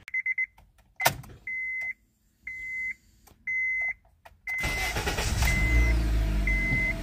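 A car's warning chime beeps about once a second, with a click about a second in. A little past halfway, the 2006 Honda Civic's 1.8-litre four-cylinder engine starts and runs at a fast idle, with the chime still beeping over it.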